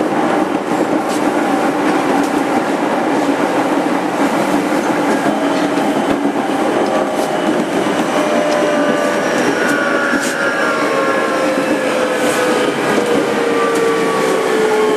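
Running sound inside the motor car of a JR 205-5000 series electric train: steady wheel and track noise with rail-joint clatter. From about halfway through, the motor and inverter tones fall slowly in pitch as the train brakes for its station stop.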